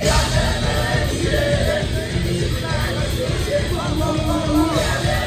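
Live rock band playing loudly with a vocalist singing over it, recorded from within the crowd.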